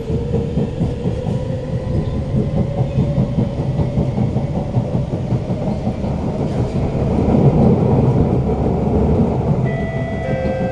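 Siemens C651 metro train heard from inside the carriage as it gathers speed: a loud traction-motor whine that slowly rises in pitch over the steady rumble of the wheels on the rails, swelling a little past the middle.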